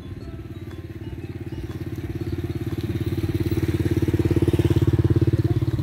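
A small motorcycle engine running with a low, fast putter, growing steadily louder as it draws near and loudest near the end.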